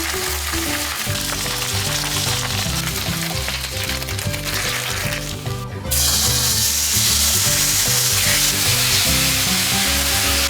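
Food frying in a pan, a steady sizzle that drops out briefly just before six seconds in and then comes back louder.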